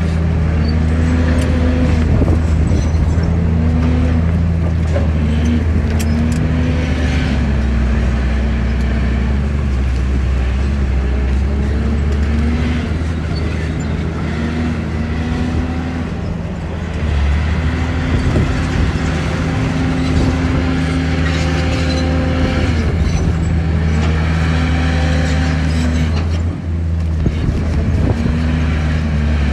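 Heavy earthmoving machine's diesel engine working under load, its pitch rising and falling again and again as it is throttled up and down, with scattered clanks.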